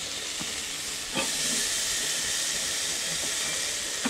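Whole snapper sizzling on a hot gas barbecue grill: a steady hiss that gets louder after a short click about a second in.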